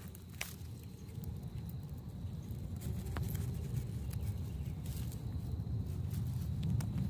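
Low, uneven outdoor rumble that grows slightly louder, with a few faint clicks.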